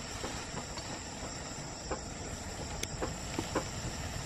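Steady high chirring of crickets or similar insects, with a few faint clicks about halfway through and near the end.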